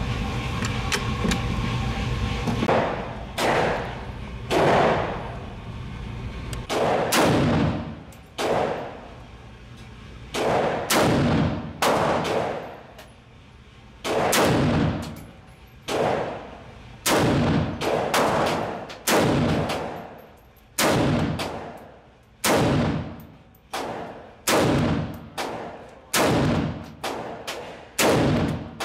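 Century Arms Micro Draco VSKA, an AK-pattern pistol in 7.62x39, fired semi-automatically in a long string of about two dozen single shots. The shots come at irregular spacing, roughly half a second to two seconds apart. Each shot echoes off the concrete walls of an indoor range.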